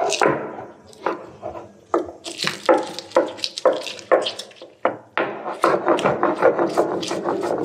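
Green and dried chillies being ground into paste by hand on a shil-nora, a stone slab and grinding stone: repeated strokes of stone rubbing and knocking on stone, slow at first and quicker about five seconds in.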